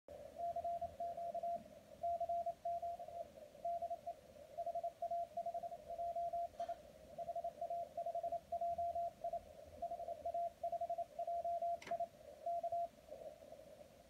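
A Morse code (CW) signal from an amateur radio station on the 80 m band, received on the Teensy Convolution SDR: a single beep tone keyed on and off at about 24 words per minute over band hiss, calling 'CQ CQ CQ DE HA5JI … K'. A short static crackle is heard near the end, and the keying stops about 13 seconds in, leaving only hiss.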